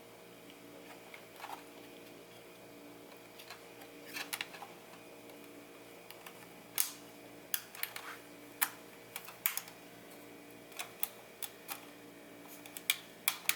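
Small plastic camera parts clicking and tapping as the Nikon Coolpix L840's frame is handled and pressed into its housing: scattered sharp clicks, sparse at first and more frequent and louder in the second half, over a faint steady hum.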